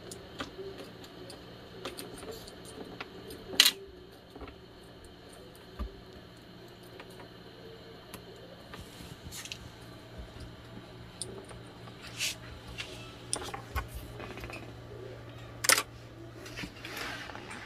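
A kitten pawing and scrabbling on a desk: scattered light taps, clicks and paper rustles, with a sharper click about four seconds in and another near the end, over a faint steady hum.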